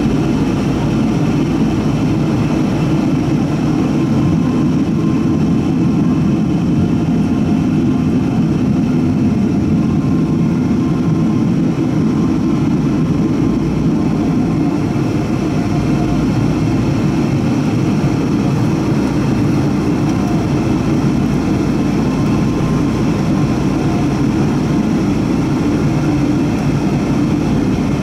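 Steady low rumble of a Boeing 777-200's Rolls-Royce Trent engines at taxi power, heard from inside the passenger cabin as the airliner taxis after landing.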